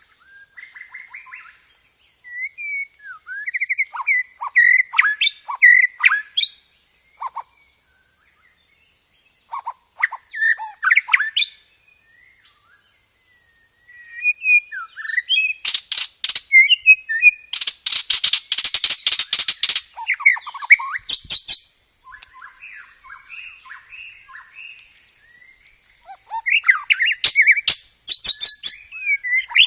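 White-rumped shama (murai batu) singing loud, varied phrases of whistles and chirps in bursts with short pauses, including fast rattling rolls, the densest at about 18 to 20 seconds. A steady thin high tone runs underneath.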